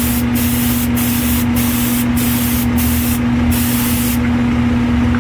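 Airbrush spraying 2K urethane clear coat: a loud air-and-paint hiss broken by brief pauses about every half second as the trigger is worked, stopping about four seconds in. A steady low motor hum runs underneath.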